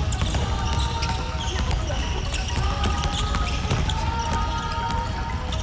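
Many basketballs dribbled at once on a hardwood gym floor: a dense, irregular patter of bounces. Electronic background music plays underneath.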